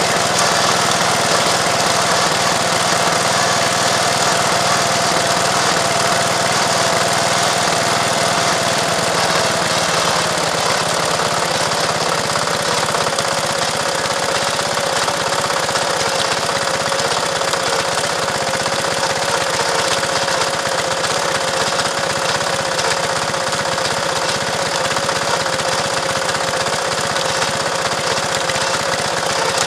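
Small engine of a miniature-railway speeder running steadily as the car travels along the track. Its note drops a little about ten seconds in, then holds steady.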